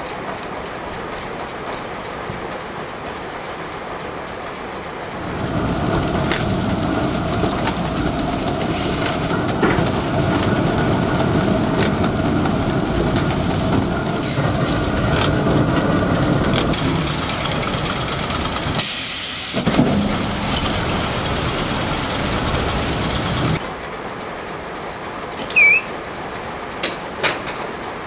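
Steady machinery noise, then about five seconds in a louder, continuous heavy rumble and clatter from a Nicholson A8 high-speed ring debarker as a log passes through it, with a brief sharp hiss about two-thirds of the way through. The noise drops back to quieter steady machinery near the end, with a few short metallic clinks.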